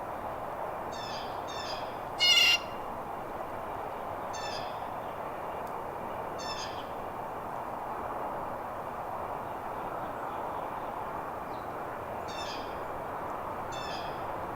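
A bird giving short, harsh calls, often two in quick succession, at irregular intervals, with one much louder call about two seconds in, over a steady background hiss.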